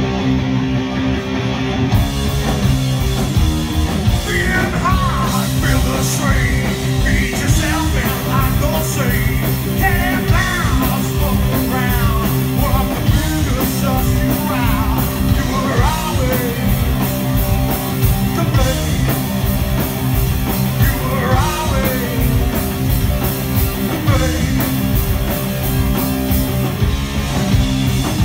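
A live stoner rock band playing: electric guitars, bass and a drum kit, with cymbals coming in about two seconds in and a singer joining a couple of seconds later.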